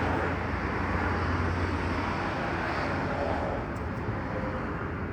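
Street traffic going by, a steady low rumble of passing vehicles that eases off about three and a half seconds in.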